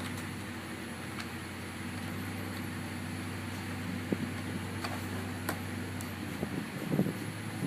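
Fuel-injected 455 Oldsmobile big-block V8 running steadily at about 1,450 rpm on an engine dyno, almost unloaded, with a few light clicks.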